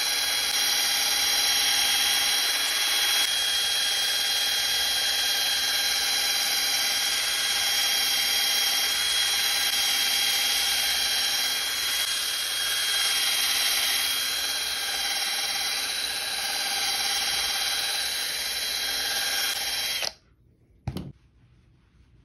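Handheld rotary polisher spinning a yellow foam pad with light polish over a glossy 3D-printed helmet shell. It is the fine polishing stage that takes out light scratches and swirls. The motor runs at a steady speed with a whine of several steady tones, then stops abruptly about 20 seconds in, followed by a brief knock.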